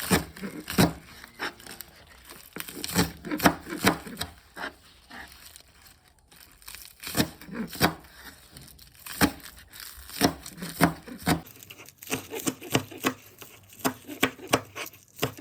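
Irregular crinkling and tearing with many sharp clicks, as of something being handled and torn.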